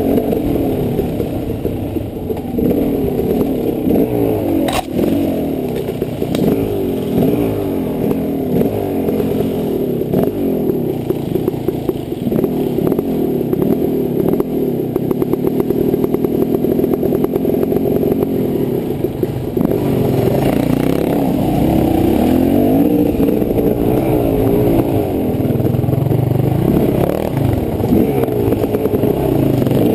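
Off-road dirt bike engine running hard, its pitch rising and falling as the throttle is opened and closed, heard from the rider's helmet. A sharp knock comes about five seconds in, among scattered clatter from the bike over rough ground.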